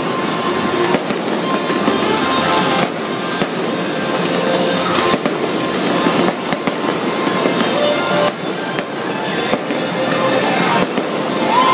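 Aerial fireworks display: a continuous barrage of shell bursts, bangs and crackling overlapping one another.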